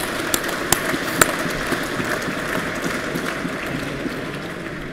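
Audience applauding, the clapping thinning and dying down near the end.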